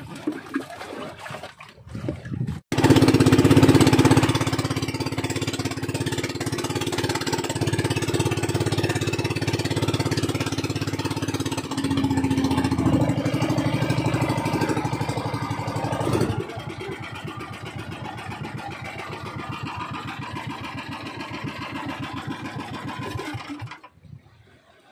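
Small engine of a motorised outrigger fishing boat running steadily under way. It eases off and quietens about two-thirds through, then falls away near the end.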